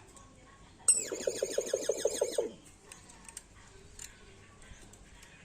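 Common hill myna calling once, about a second in: a sharp, high whistle that slides downward into a quick rattling run of about eight pulses a second, lasting about a second and a half and dropping in pitch as it ends.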